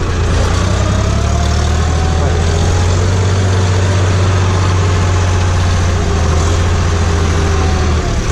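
Farm tractor engine running steadily, heard from inside the cab as the tractor pulls a disc harrow across tilled soil.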